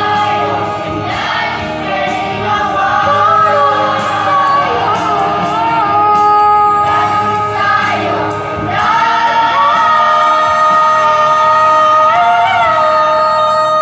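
Choir singing a hymn in long, held notes. A new phrase starts a little past halfway.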